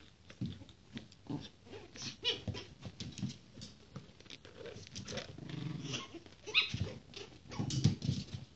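Two 45-day-old Japanese Chin puppies play-fighting: small growls, a couple of high yips and scuffling paws.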